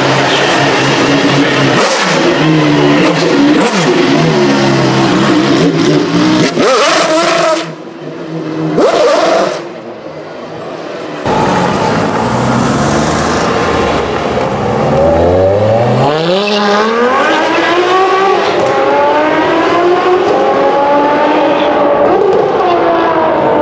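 Supercar engines: the Maserati MC12 Corsa's V12 revving loudly as it moves off slowly. After a cut about eleven seconds in, a Ferrari 599's V12 accelerates hard, its pitch climbing and dropping back at each upshift several times.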